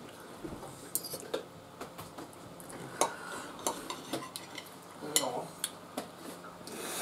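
Knife and fork clinking and scraping against a ceramic plate while cutting into an enchilada: scattered sharp clicks of metal on china.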